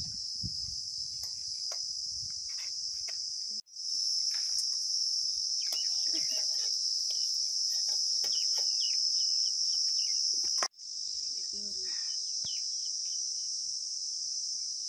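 Steady high-pitched chirring of crickets, which cuts out suddenly twice, with faint light clicks of a wire skimmer against a metal frying pan beneath it.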